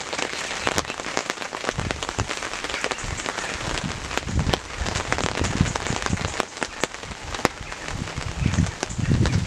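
Heavy rain pattering steadily on a tarp, with many sharp ticks of drops and a few dull knocks, the loudest near the end.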